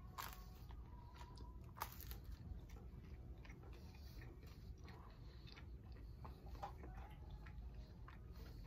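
Faint close-up chewing of a grilled hot dog in a crispy toasted bun, with a couple of sharp crunches in the first two seconds.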